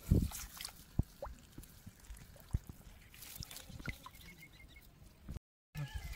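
Small splashes, drips and trickles of water as a hand picks large freshwater snails out of a shallow pool among dry reeds, with a few short sharp clicks.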